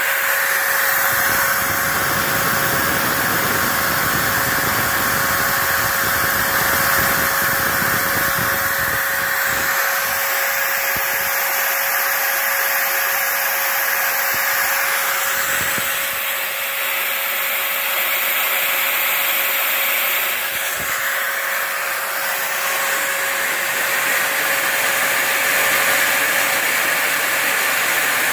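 A router serving as the spindle of a home-built CNC machine, running steadily at speed with a constant whine while it mills foam.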